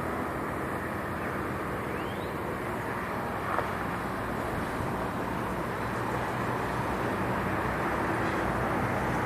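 City ambience: a steady wash of distant traffic, slowly growing louder, with a faint short rising chirp about two seconds in.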